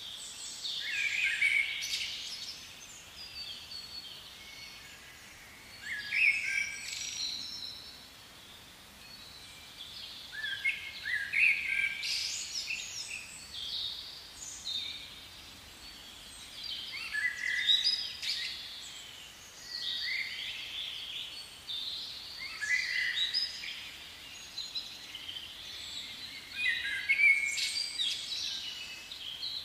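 Songbirds singing in short phrases of high, quick chirps and trills that come back every five or six seconds, over a faint steady background hiss.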